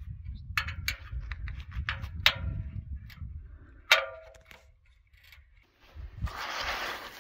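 Sharp metallic clicks and clinks, about half a dozen, a few with a brief ring, from wire and a hand tool being worked against an aluminium ladder, over a low rumble. About six seconds in, a rough rustling noise of hands working a straw-and-clay cob mix begins.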